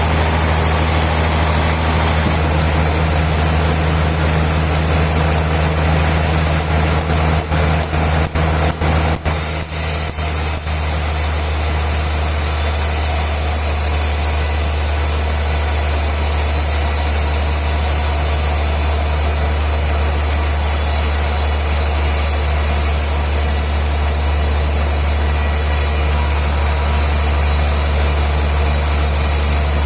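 Sawmill machinery running steadily with a loud, constant low hum and hiss. There is a short run of brief breaks and clicks about a third of the way in.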